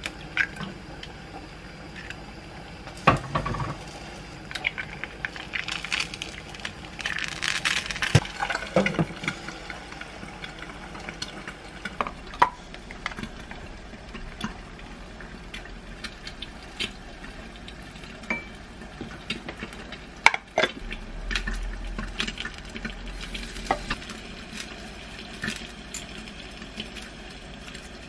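Kitchen cooking sounds: oil sizzling as eggs fry in a pan, then clinks, knocks and scrapes of lidded plastic containers and a spoon on a glass mixing bowl as rice and kimchi are put in. The hiss is strongest a few seconds in; sharp knocks come about three seconds in and again near twenty seconds.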